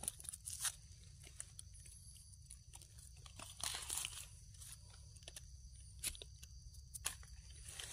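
Dry leaf litter crackling and rustling under hands, with small scrapes and snaps as wild mushrooms are dug out and trimmed with a knife; a few louder rustles stand out about three and a half seconds in and again near six seconds.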